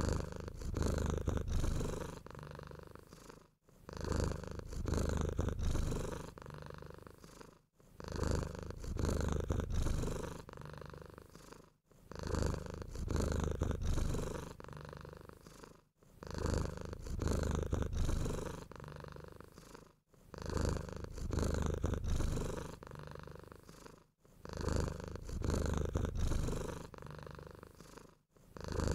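Domestic cat purring close up, a steady low rumble that swells and fades with each breath. The same stretch of about four seconds repeats some seven times with a brief dropout between, like a looped purr.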